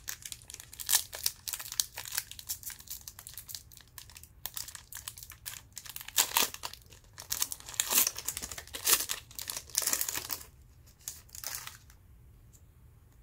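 Plastic wrapper of a Panini Hoops trading-card pack crinkling and tearing as it is opened, in uneven bursts of crackle that stop a little before the end.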